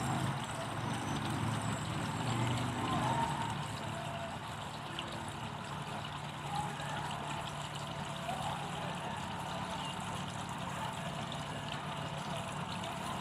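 ShopSmith bandsaw running, its blade cutting through a small log section: a steady low hum with a hiss of sawing over it. It is a little louder for the first three seconds or so, then settles to an even level.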